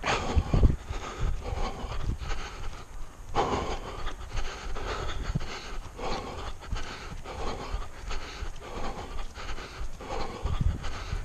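A runner panting hard while running, with footfalls on grass and a steady rumble of wind against the head-mounted microphone.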